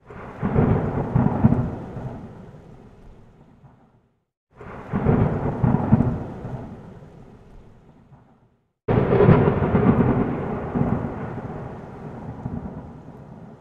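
Three rumbles of thunder, each starting suddenly and dying away over about four seconds, with a brief dead silence between them.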